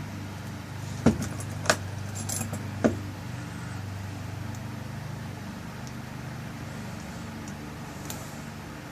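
Small metal clicks and jingling from a lock cylinder, its keys and parts being handled as the tailpiece is screwed back on. There are four sharp clicks in the first three seconds and a faint one near the end, over a steady low hum.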